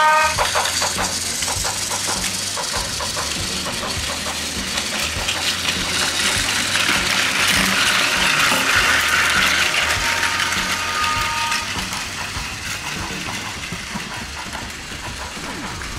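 Battery-powered Plarail toy trains running on plastic track: small electric motors whirring with a fast clicking clatter of plastic gears and wheels. The sound is loudest as a train passes close, about eight seconds in, then fades.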